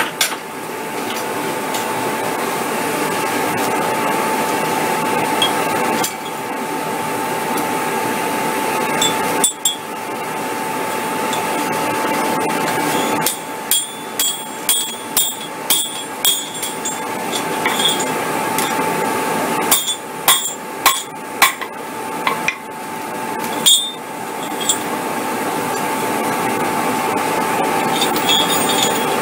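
Hand hammer striking a hot mild-steel chain link on an anvil to weld it closed, in two runs of ringing blows about two a second, the first about halfway in and the second shortly after. A steady drone runs underneath.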